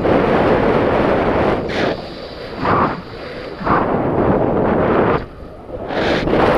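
Wind buffeting the microphone: a loud rushing roar that swells and drops in gusts, easing briefly about five seconds in.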